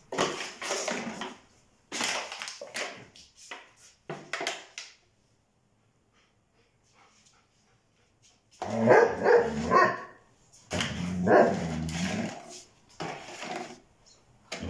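Young Briard dog barking in a series of loud barks over the second half. Before that come a few seconds of crackling and knocking as the dog paws and mouths a plastic water bottle.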